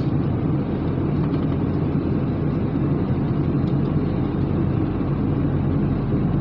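A vehicle engine running steadily, a low, even drone with no change in pitch.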